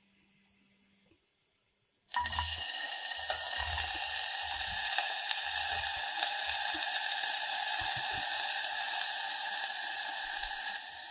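Finely chopped onion dropping into hot oil and sizzling, starting suddenly about two seconds in, with a few soft knocks as the onion is scraped into the pan; the sizzle then holds steady and eases slightly near the end.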